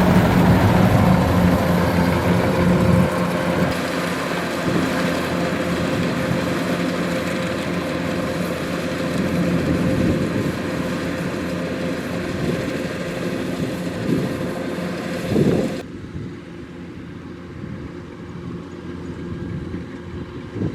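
Kubota DC-105X rice combine harvester running: steady diesel engine and machinery noise with a strong low hum in the first few seconds. About sixteen seconds in, it drops abruptly to a quieter, duller sound.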